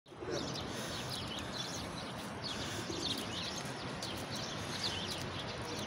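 Outdoor city background noise, steady, with small birds chirping over and over.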